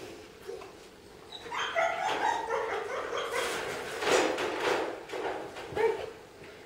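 A dog barking and whining in a string of high, wavering calls that start about a second and a half in and peak about four seconds in. This is the fretting of a dog that hates its owner training another dog or leaving its sight.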